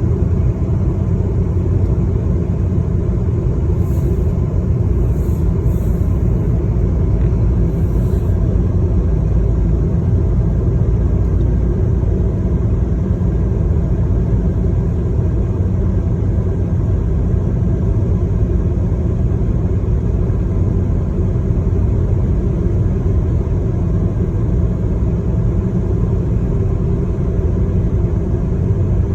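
Steady low rumble of a moving vehicle, unchanging throughout.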